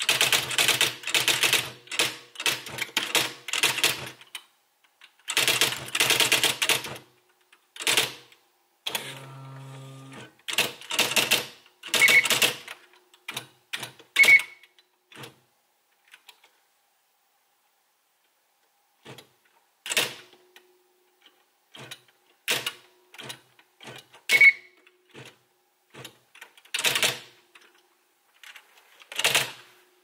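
Smith Corona SL600 SpellRight electronic typewriter typing: quick runs of print strikes at first, then scattered single strikes with pauses, and a short motor whirr about nine seconds in.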